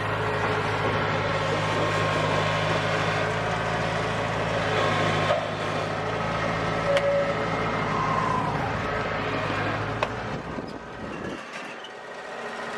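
Kubota DC-70 combine harvester's diesel engine running steadily with mechanical clatter from the machine, its low hum falling away about a second and a half before the end.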